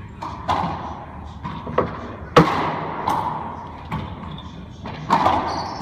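Racquetball rally: a series of sharp cracks of racquet strikes and the ball hitting the court walls, each ringing briefly in the hard-walled court, the loudest about two and a half seconds in.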